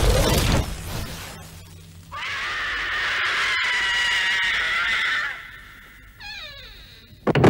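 A loud explosion sound effect that fades over about a second and a half, then a long high-pitched cry held steady for about three seconds. A short wavering, falling cry follows, and a second explosion comes near the end.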